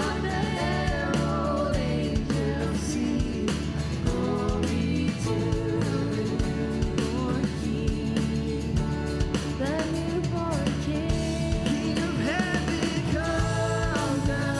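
Live worship band music with singing: held sung notes over bass and drums keeping a steady beat.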